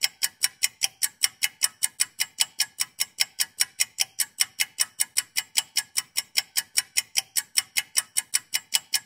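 A clock-like ticking sound effect, fast and perfectly even, counting down the ten seconds given to answer a quiz question.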